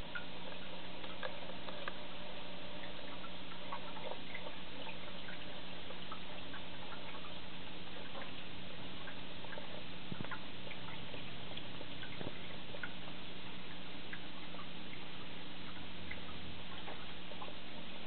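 Aquarium equipment running: a steady hiss and low hum, with scattered small water ticks and drips. A single sharp click right at the start.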